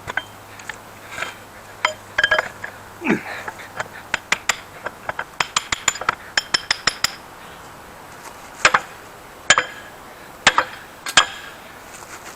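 Sharp metal clinks and taps of steel vise parts, the thrust washers and bearing, being worked off and handled during disassembly: a quick run of taps about halfway through, then four louder single clinks near the end.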